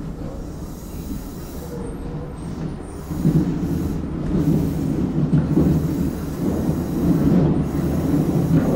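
Tobu 10030-series electric train running on the rails, heard from the front of the train: a steady rumble of wheels and running gear that gets louder about three seconds in.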